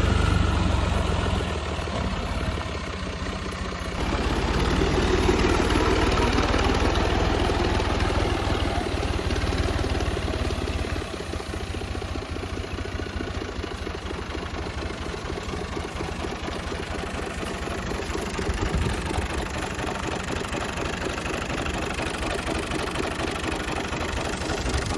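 Combine harvester engine running steadily with a low, pulsing throb, growing louder about four seconds in and easing off somewhat a few seconds later.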